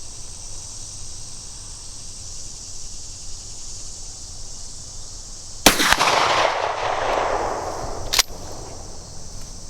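A single shotgun slug shot, one loud report whose echo rolls away over about two seconds, followed by a sharp short click about two and a half seconds later. Crickets hum steadily underneath.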